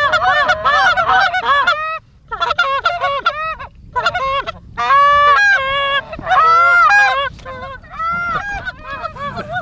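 Goose call blown by hand in practice: quick runs of short honks and clucks, broken by a couple of brief pauses, with a few longer drawn-out honks in the middle.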